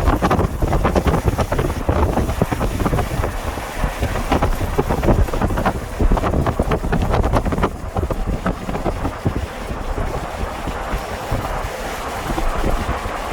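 Wind gusting and buffeting the microphone, strongest in the first half and easing a little after about eight seconds.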